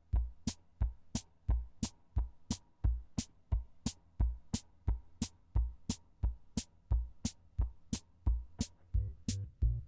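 Instrumental music with a steady beat: sharp ticks about three a second over low drum thumps and a sustained bass.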